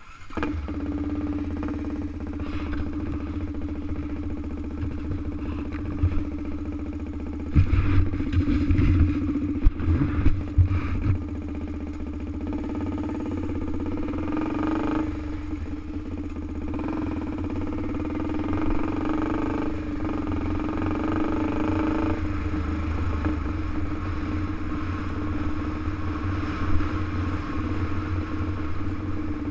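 Honda TRX400EX sport quad's single-cylinder four-stroke engine running steadily as it is ridden along a dirt trail, its note changing several times with the throttle. A spell of loud knocks comes about eight to eleven seconds in.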